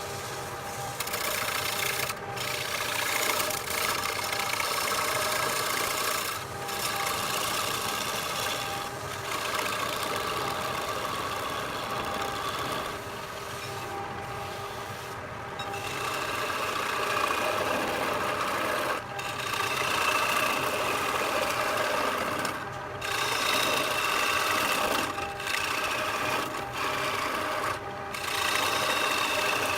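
Wood lathe running with a cutting tool scraping across spinning wood: a steady motor whine under a continuous rasping hiss, with several brief breaks where the cut lets up.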